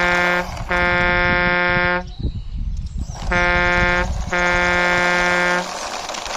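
Truck horn sound, a steady single-pitch honk sounded in four blasts: a short one at the start, a longer one of about a second and a half, then two more close together from about three to five and a half seconds in.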